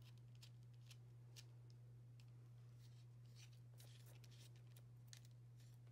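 Near silence with a steady low hum and faint, scattered small clicks from a metal lino-cutter blade and chuck being handled and fitted into the handle.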